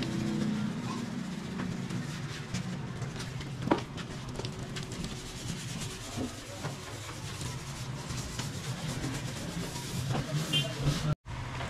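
Sandpaper being rubbed by hand over a wet, primed car bonnet, a run of light scratchy strokes over a steady low hum.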